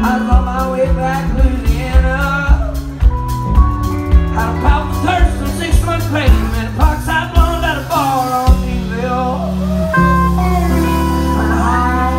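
Live country-rock band: a man singing lead with acoustic guitar, electric bass and a drum kit playing a steady beat. About eight and a half seconds in, the beat drops away and the band holds a long chord under the singing.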